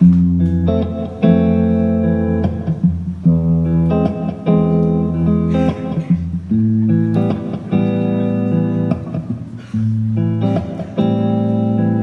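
Guitar playing sustained chords that change every second or two, as the instrumental intro of a song.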